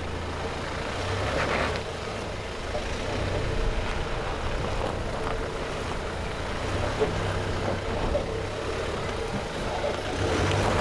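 Toyota Hiace 4x4 van's engine running at low revs as it crawls over rocks in low range with the diff locks engaged, tyres grinding over dirt and stone, and a few short knocks from the rocks or suspension.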